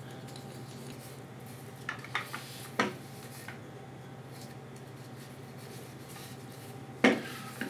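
Light clicks and knocks of wooden hand screw clamps being handled while finish is put on them: a few short taps about two to three seconds in and a sharper click near the end, over a steady low hum.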